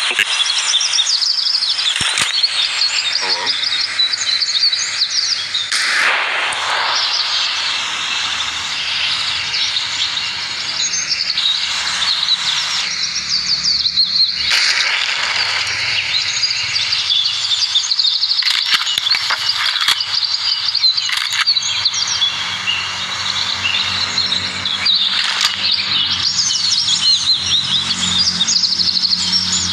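Many birds chirping and singing at once, a dense, continuous chorus of short, high chirps and trills.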